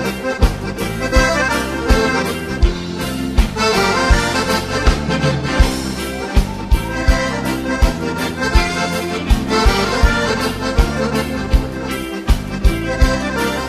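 Accordion playing an instrumental break in a gaúcho dance tune, backed by a band whose bass and drums keep a steady beat.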